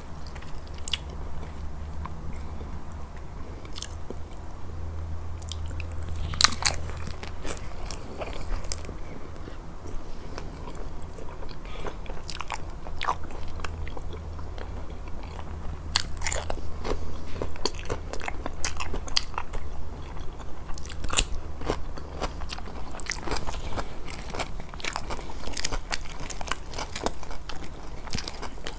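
Close-miked eating: crunchy bites and chewing, with many sharp mouth clicks throughout, coming more thickly in the second half.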